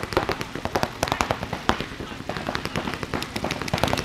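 Paintball markers firing in rapid, overlapping strings of sharp pops, several guns shooting at once, the shots thinning a little midway.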